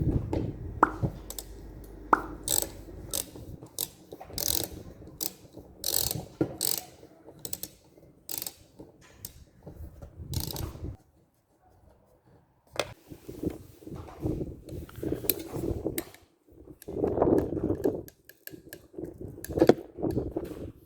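Repeated, irregular mechanical clicks and rattles in short bursts, with a pause of about two seconds around the middle.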